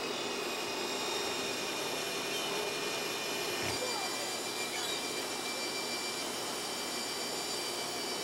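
Steady outdoor background noise: an even rush with no distinct event and no change in level.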